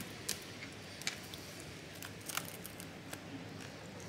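Thin metal pry tool working under a cracked glass phone back cover: scattered small, sharp clicks and cracks, about five over a few seconds, as the glass and its adhesive give.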